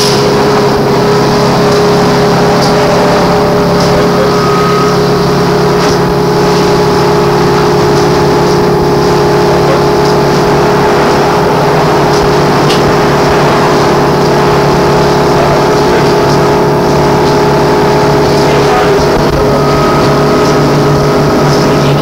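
Inside a MAN articulated trolleybus: a steady electric hum of several fixed tones over a low rumble, with no change in pitch.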